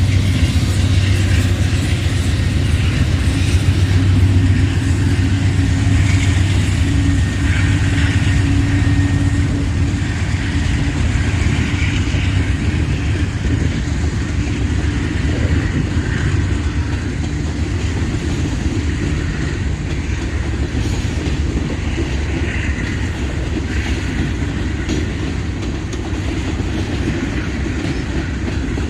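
Norfolk Southern manifest freight train rolling past: a steady, continuous rumble of the cars going by, easing slightly toward the end.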